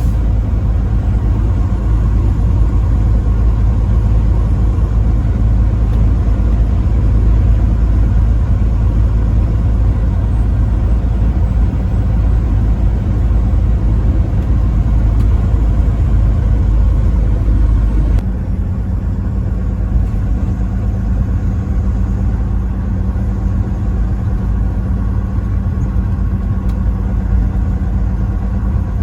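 Semi-truck driving on the highway: a steady low engine and road rumble. About 18 seconds in, the deepest part of the rumble drops away abruptly, leaving a lighter, even hum.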